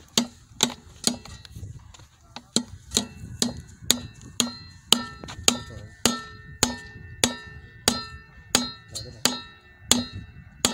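Hand tool striking a PVC wye fitting to drive it onto the drain pipe: sharp, regular blows about two a second, each with a short ringing, and a brief pause near the start.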